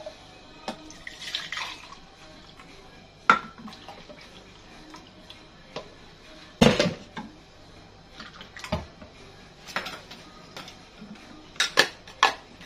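Hard plastic children's cups, bottle and snap-on lid knocking and clicking against a stone countertop while juice is poured and a lid is pressed on, with a brief trickle of pouring liquid about a second in. The loudest knock comes about six and a half seconds in, and two quick clicks come near the end.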